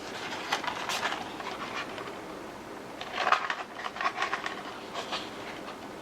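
Rustling and clicking of a disc box set's packaging being handled, in two bouts, a short one about half a second in and a busier one from about three seconds in.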